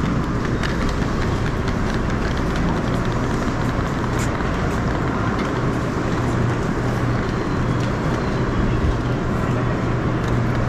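Steady rumble and hum of a train, with faint light clicks scattered through it.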